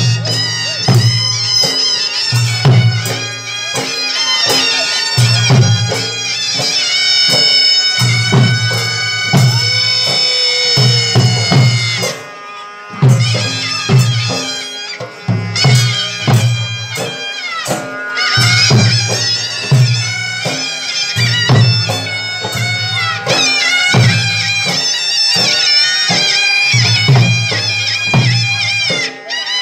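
Live folk music: a reed wind instrument plays long, nasal, wavering held notes over a steady pounding beat of barrel drums. The music drops out briefly about twelve seconds in.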